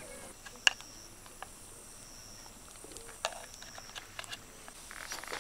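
High, steady insect trilling that comes and goes in stretches, with a few sharp clicks and taps, the loudest about a second in.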